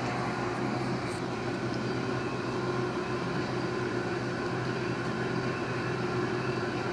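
A steady mechanical hum with a low drone that does not change.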